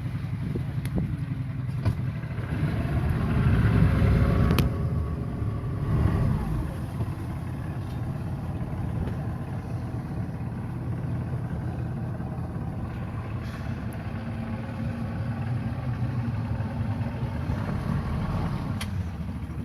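A motorboat's engine running steadily, a low rumble that swells louder for a couple of seconds about four seconds in.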